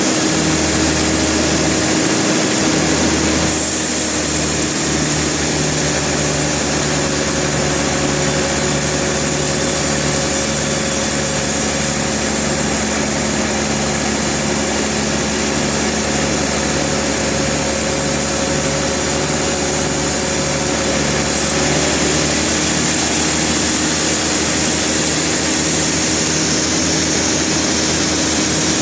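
Sawmill machinery running steadily under power. A higher hiss of sawing joins about three seconds in and stops about two-thirds of the way through.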